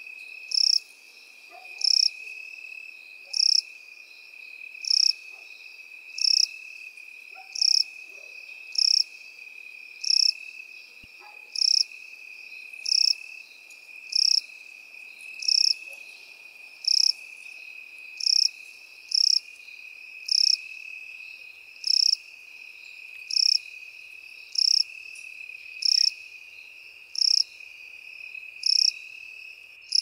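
Crickets and grasshoppers calling in field grass: one steady, unbroken high trill runs underneath, and a louder short chirp repeats evenly about every second and a third.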